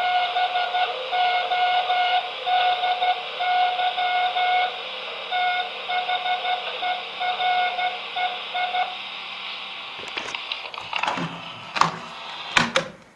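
Morse code beeps played from a device: a single mid-pitched tone keyed on and off in short and long pulses over a steady hiss. The beeping stops about nine seconds in, followed by a few sharp clicks and knocks.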